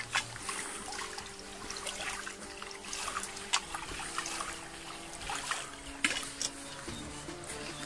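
Water running and trickling along a narrow irrigation channel, spilling over a small drop, with footsteps on wet grass clicking now and then.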